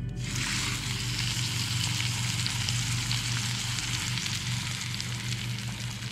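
Steak sizzling steadily in a hot cast iron skillet. The sizzle starts suddenly just after the beginning, and a low steady hum runs underneath.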